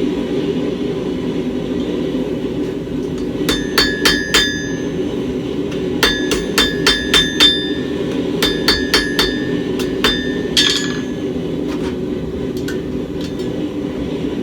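Hammer blows on hot steel over an anvil, rounding the tip of a bar, in quick runs of four to six ringing strikes with pauses between. A steady low hum runs underneath.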